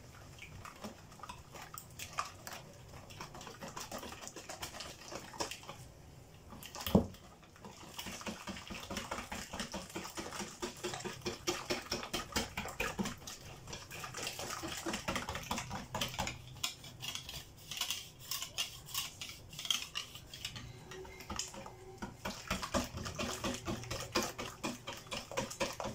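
Wire whisk beating crêpe batter in a mixing bowl to break up the lumps: fast, regular clicking and scraping of the whisk against the bowl, faint at first and steady from about eight seconds in. One loud single knock comes just before the fast beating starts.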